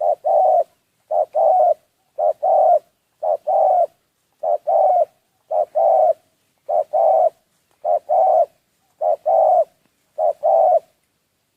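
A dove cooing: a two-note coo, a short note then a longer one, repeated steadily about once a second, ten times.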